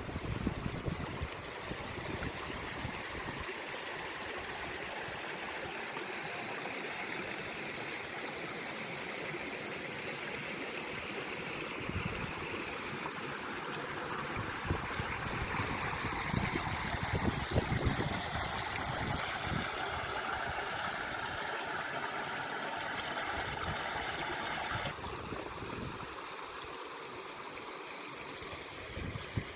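A stream running steadily, its water sound changing abruptly about 25 seconds in.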